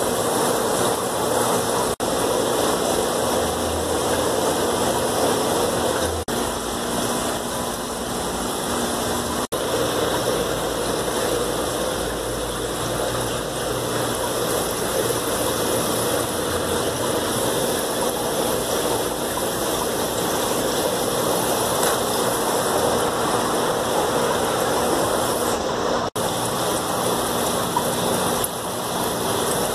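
Aquarium filtration running: a steady rush of moving water with a low pump hum underneath, cut off for an instant a few times.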